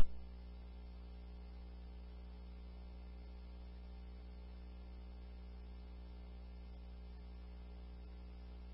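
A sudden loud click right at the start, then a steady low electrical hum in the recording, a buzz of several even steady tones with nothing else over it.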